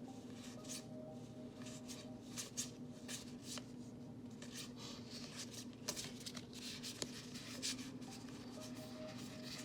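Magic: The Gathering cards handled and slid one by one, a run of short papery swishes and flicks at about two a second.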